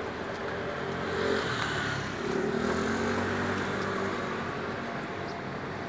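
Street traffic: a motor vehicle's engine running close by, its pitch shifting as it passes, over steady road noise.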